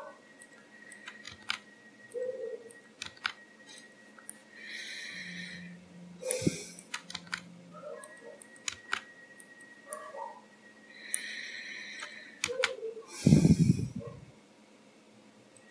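Computer mouse clicks and keyboard key presses at an irregular pace during desk work, with a brief low thud, the loudest sound, near the end.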